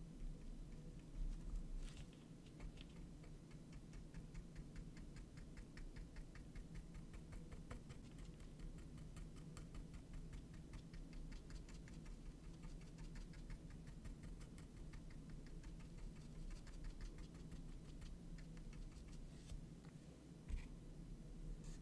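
Flat paintbrush dabbing paint onto a small canvas: a fast, even run of light bristle taps over a low steady hum, thinning out near the end, with one soft thump shortly before the end.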